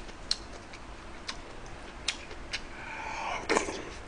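A metal spoon clicking against a black ceramic pot while eating stew: about five sharp, separate clicks, with a short mouth sound about three seconds in.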